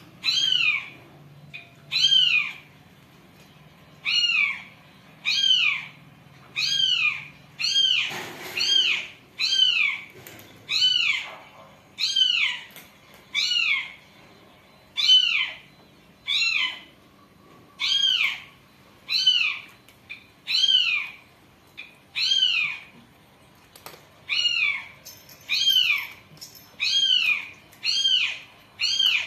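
Cat meowing over and over, more than twenty high-pitched meows that each rise and fall in pitch, coming about once a second at a steady pace.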